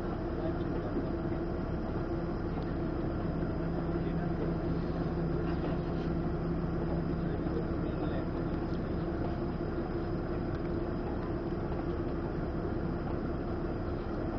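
Passenger ferry's engines running steadily, heard from inside the cabin: a constant low drone with a steady humming tone, and a deeper hum that joins about two seconds in and fades out about six seconds later.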